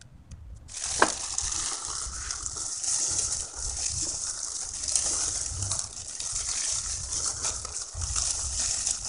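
A plastic-gloved hand mixing grated coconut, sugar and glutinous rice flour in a steel bowl: steady crinkling of the plastic glove and rustling of the dry mixture, starting just under a second in, with one sharp knock about a second in.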